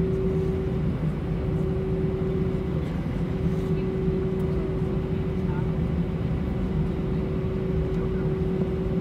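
Airbus A320 cabin noise while taxiing, its IAE V2500 engines running at idle: a steady low drone with a constant hum tone running through it.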